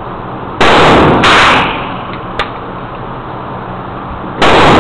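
Three loud gunshots echoing in an indoor range. Two come about half a second apart, starting about half a second in, and the third comes near the end, with a short sharp click between them.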